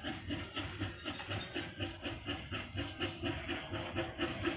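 Narrow-gauge steam locomotive working a train, its exhaust chuffing in a steady rhythm of about three beats a second over a hiss of steam.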